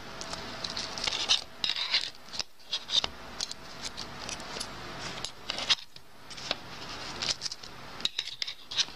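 Metal fork scraping and clicking against a metal baking tray while prying a freshly baked bread roll loose, in a string of short irregular scrapes and ticks.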